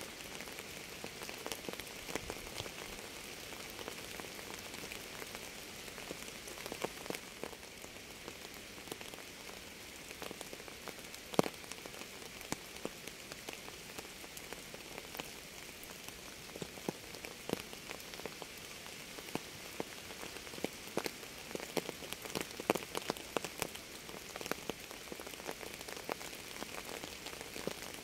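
Steady rain falling on a surface, a constant hiss with many individual drops ticking at irregular intervals; one drop lands noticeably louder about eleven seconds in.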